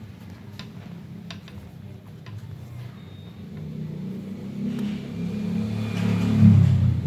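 A low engine sound, swelling louder over the last few seconds, with a few light clicks in the first couple of seconds.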